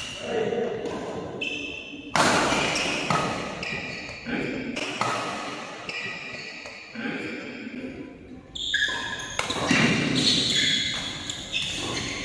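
Badminton rally: rackets striking the shuttlecock about once a second, each hit echoing in a large hall.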